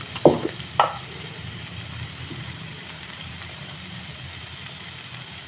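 Masala frying quietly in a kadhai over a gas flame: a steady low hum with a faint sizzle. There are two short scrapes or knocks in the first second.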